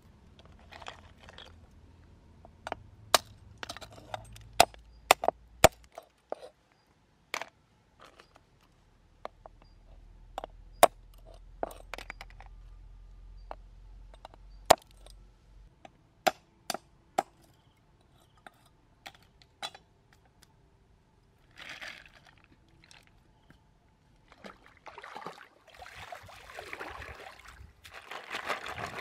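Large knife chopping the tips off snail shells on a wooden chopping block: sharp, irregular knocks and cracks, sometimes close together. Near the end come water splashes as the snails are swished in a wicker basket in a stream.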